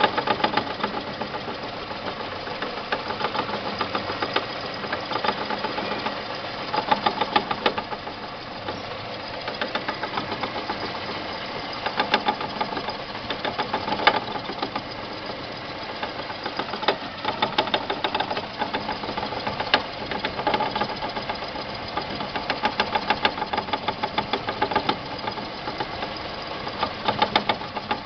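2002 Renault Clio running, with a rapid knocking that comes and goes in runs every second or two. The owner traces the knock to the tripod joint inside the driveshaft's inner housing, since the CV joints are new; a mechanic blames the engine.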